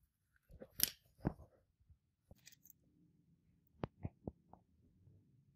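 Small metal clicks of a steel watch bracelet being worked free of its case at the lug: a few scrapes and clicks in the first second and a half, then three sharp ticks about four seconds in.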